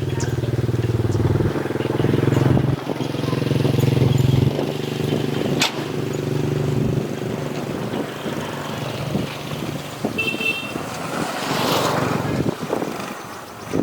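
A small engine running steadily, strongest in the first few seconds and then fading away, with a sharp click about halfway through.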